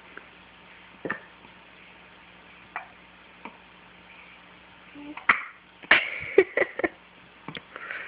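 Hiccups: single short, sharp hic sounds a second or two apart, with a quicker cluster of short sounds a little past the middle.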